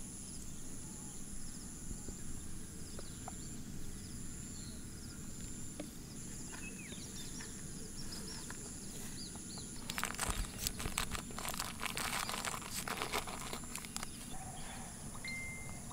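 Faint outdoor rural ambience with a few small bird chirps and a steady high-pitched tone. About ten seconds in comes a spell of crackling clicks lasting some four seconds.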